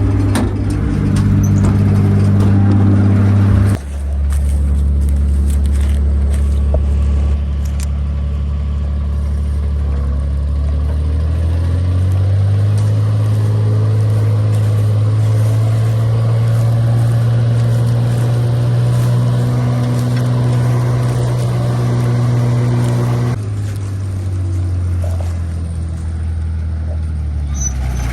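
Engine of a John Deere 95 combine running steadily and loud. Its pitch drops about four seconds in, climbs back up between about ten and twelve seconds, and drops again near 23 seconds.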